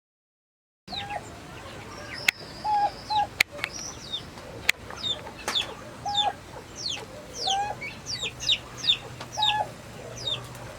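Domestic turkeys calling, starting about a second in: short, lower call notes every second or so among many quick high peeps that fall in pitch, typical of young poults, with a few sharp clicks.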